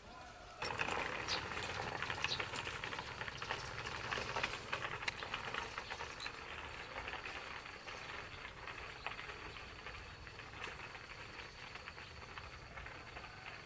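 Small stroller's wheels rattling and clattering over a rough concrete lane. The rattle starts abruptly and slowly fades as it rolls away.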